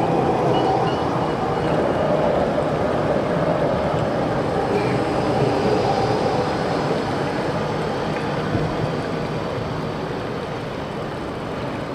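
A city tram rolling past close by on street tracks: a steady running noise of wheels on rail with a faint wavering motor whine, loudest in the first half, over general street traffic.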